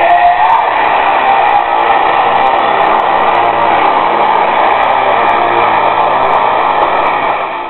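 Propeller aircraft's piston engine running steadily and loudly, with a steady rush of noise over it.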